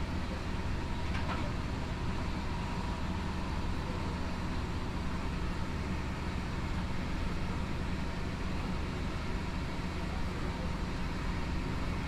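Interior of a Deutsche Bahn train at the front of the carriage: a steady low rumble with an even wash of noise over it and a faint steady whine.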